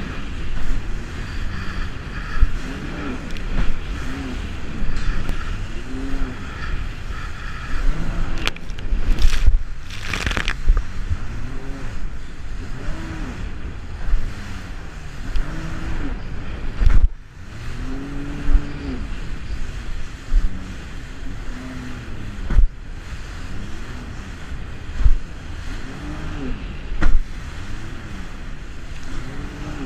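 Personal watercraft (jet ski) engine revving up and down over and over as it rides and jumps waves, with rushing water and spray, and several sharp thumps as the hull slams back onto the water.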